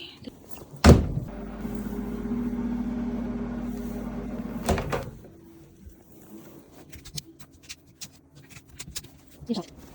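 Microwave oven door shut with a sharp thunk about a second in, then the oven running with a steady hum for a few seconds until it stops with another knock, followed by light clicks and handling noises.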